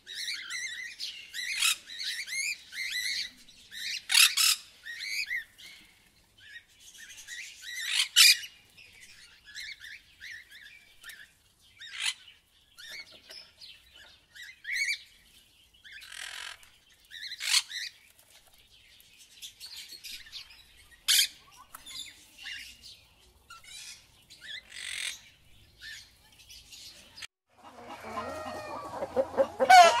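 A flock of rainbow lorikeets chattering and screeching in sharp, high bursts, with a few very loud shrieks among them. About two seconds before the end, the sound switches to chickens clucking over a low hum.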